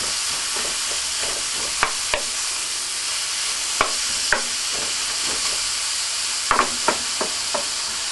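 Chopped onion, carrot and celery sizzling steadily as they sauté in a pan, stirred with a wooden spoon that knocks and scrapes against the pan now and then.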